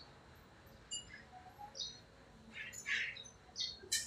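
Small birds chirping: a scatter of short, high chirps, with a denser cluster about two and a half to three seconds in.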